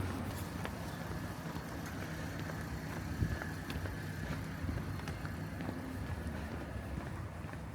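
Road traffic: a motor vehicle's engine running as a steady low rumble, with a few faint clicks.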